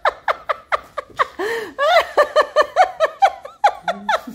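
A woman laughing hard in a fast, unbroken run of short pitched bursts, about four or five a second.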